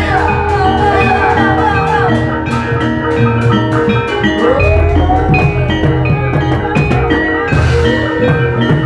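Javanese gamelan music accompanying an ebeg horse dance, played through loudspeakers: metallophones strike a repeating melody over drums, with a voice sliding between notes.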